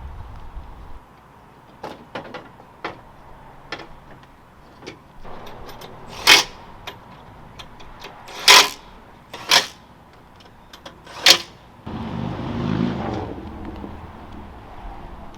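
Scattered clicks and knocks, with four loud, sharp clanks a second or two apart, then a rushing noise starting about twelve seconds in that fades away.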